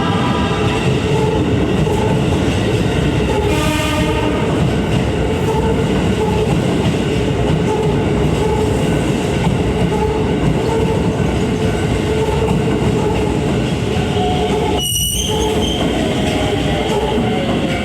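Electric commuter train running over a level crossing: a continuous loud rumble with wheels clattering over the rail joints and crossing. A brief horn-like tone sounds about four seconds in.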